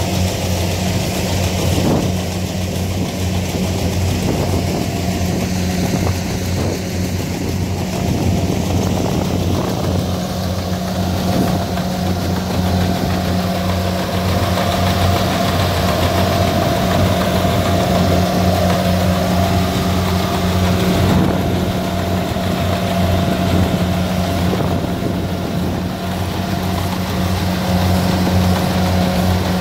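Kubota combine harvester's diesel engine running steadily under load while cutting and threshing flattened rice: a deep, even hum with a higher whine that grows louder around the middle as the machine comes close.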